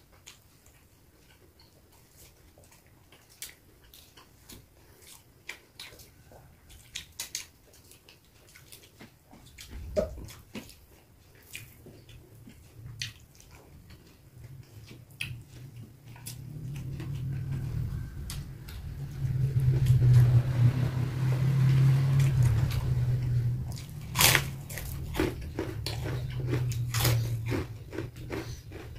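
Close mouth sounds of a person eating by hand: chewing and crunching raw vegetables and rice, with many small wet clicks and smacks. About halfway in, a low drone builds up, is loudest about two-thirds through, then eases off near the end.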